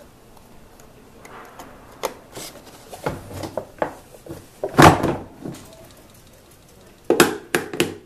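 Hands working at a golf cart's dash panel and wiring: scattered light clicks and knocks, with one loud knock about five seconds in and a quick run of clicks about seven seconds in.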